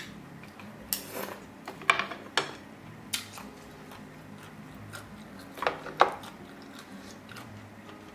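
Close-miked mukbang eating sounds: chewing and mouth sounds, with sharp clicks and clinks of chopsticks and a ladle against the pot and bowl, coming in two clusters, about a second in and again around six seconds.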